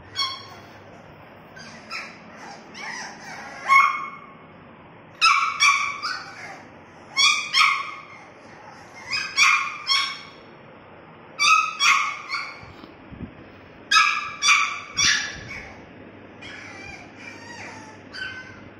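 French bulldog puppy giving high-pitched yips and whimpers during play, in short clusters of quick calls every one to two seconds.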